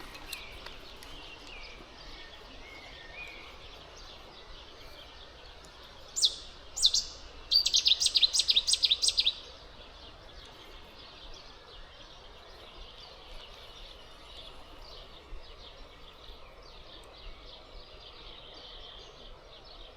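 Wild bird calling outdoors: two sharp high calls about six seconds in, then a fast trill of high chirps lasting about two seconds, with fainter chirps later, over a low steady background of outdoor ambience.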